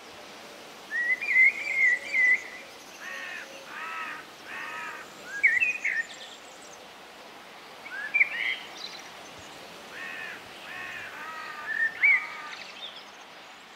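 Wild birds calling: a warbling phrase about a second in, then short arched call notes in groups of two or three, mixed with a few higher chirps, over a steady faint outdoor hiss.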